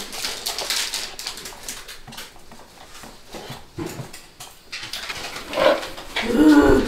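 Kraft cardboard jewelry boxes handled with faint taps and rustles, then a short pitched cry that falls in pitch, heard twice near the end.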